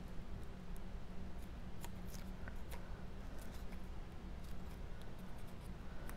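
Cardstock card pieces being handled and pressed together by hand: faint, scattered light clicks and paper rustles.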